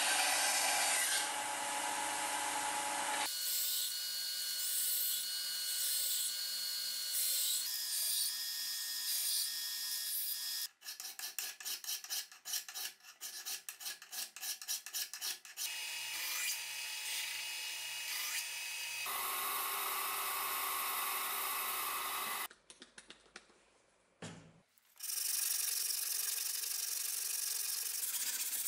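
Steel knife blank being shaped, in several cuts. First it is pressed against a running Bernardo BDSM 150N belt sander. About halfway through, a hand file rasps over it in fast, even back-and-forth strokes for several seconds. Near the end comes steady rubbing as the blade is sanded by hand on a block.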